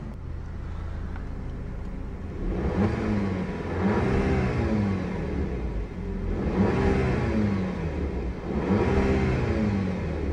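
2012 Volkswagen CC R-Line's 2.0-litre turbocharged four-cylinder idling, then revved three times, each rev rising to about 3000 rpm and falling back to idle, heard from inside the cabin.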